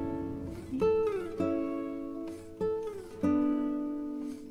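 Background music on a plucked string instrument: single notes and chords ring out and fade, and a couple of them slide down in pitch.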